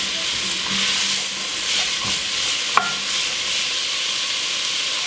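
Diced carrots and celery sizzling steadily in hot olive oil in an enameled pot while being stirred with a wooden spoon, with a single sharp tap about three seconds in.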